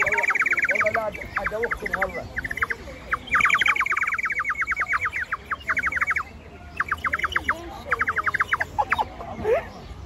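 Two small ceramic bird whistles blown together, giving rapid warbling trills in bursts of one to three seconds with short breaks between.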